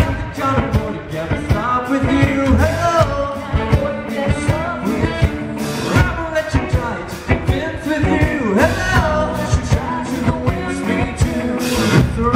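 Rockabilly band playing live: a male voice singing over upright double bass, electric guitar and drums.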